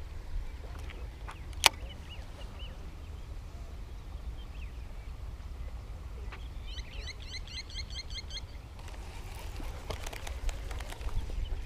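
Small birds chirping, with a fast repeating song for about two seconds just past the middle, over a low wind rumble on the microphone. One sharp click about two seconds in, and a rustle with light clicks near the end.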